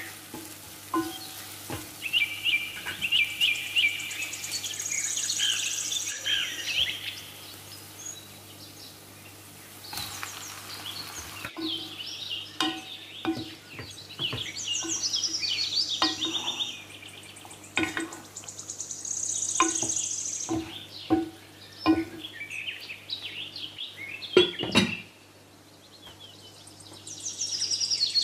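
Birds chirping in repeated high phrases every few seconds, over a wooden spatula knocking and scraping in a frying pan where food is sautéing. Near the end a louder knock as a glass lid goes onto the pan, after which the cooking sounds drop away.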